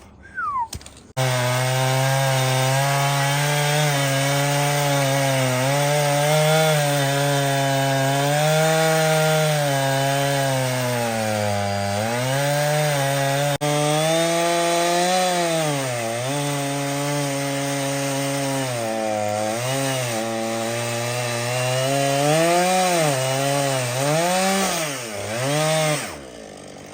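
Chainsaw on a Granberg Alaskan chainsaw mill ripping through a Mountain Mahogany log. It starts about a second in and runs at high revs, its engine speed sagging and recovering several times, more often near the end, under the load of the very hard wood, then drops off shortly before the end.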